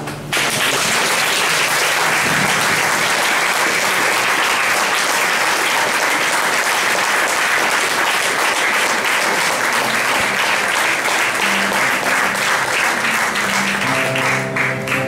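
Audience applauding, starting suddenly just after the start and holding steady for about fourteen seconds. Near the end the clapping thins and plucked guitar music comes in.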